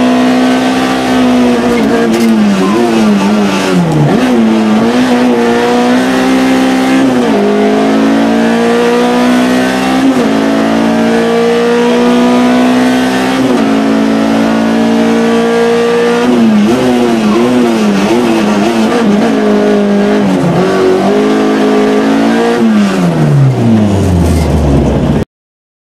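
Peugeot 106 rally car's four-cylinder engine heard from inside the cabin, running hard and repeatedly rising and falling in pitch as the car accelerates and slows. Near the end the revs fall steadily, then the sound cuts off abruptly.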